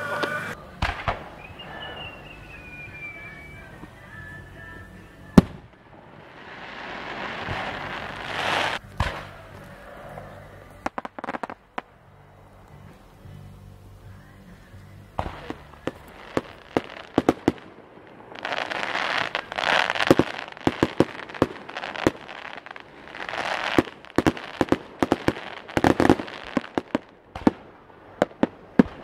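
Fireworks display: shells bursting with sharp bangs, some single and some in quick volleys, between stretches of crackling hiss lasting a few seconds.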